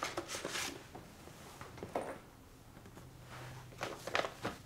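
Paper rustling as an envelope and a photo are handled, in a few short bursts.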